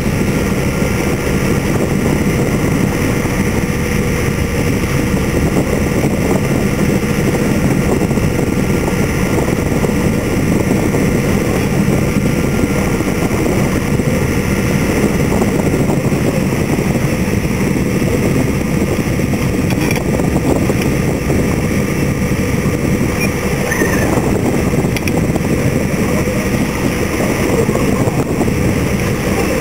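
Steady wind buffeting the microphone and water rushing past the hull of a Hanse 54 sailing yacht under way, with a faint steady hum underneath.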